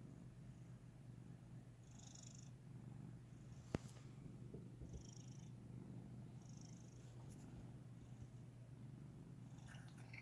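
Domestic cat purring, a faint, steady low purr. A single sharp click cuts in a little under four seconds in.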